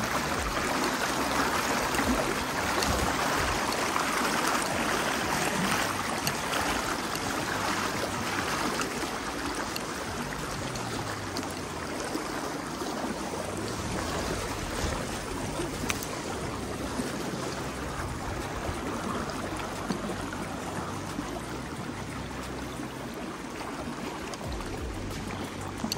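River water flowing, a steady rushing wash, a little louder in the first half.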